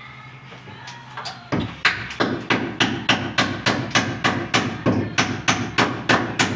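Hammer striking wood over and over in a fast, even rhythm, about three or four blows a second, starting about a second and a half in.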